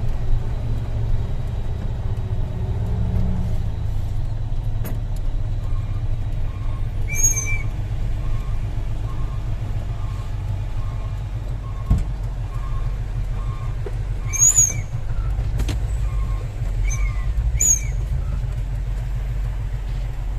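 Heavy tronton dump truck's diesel engine running steadily with a low drone. From about six seconds in, a short beep repeats roughly every 0.7 seconds for about eleven seconds. A few brief high squeaks are heard over it.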